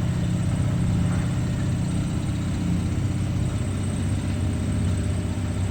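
CNC milling machine running through its program, a steady low hum and whir.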